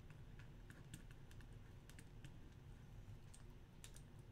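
Faint, irregular clicking of a computer keyboard being typed on.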